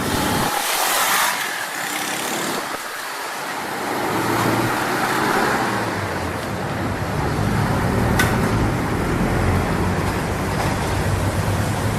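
Motorcycle engine running during a road test, with wind and road noise at first and a steady low engine note from about four seconds in.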